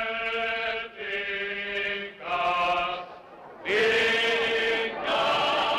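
A group of voices chanting a religious hymn in unison, in long held notes that come in short phrases with brief breaths between them.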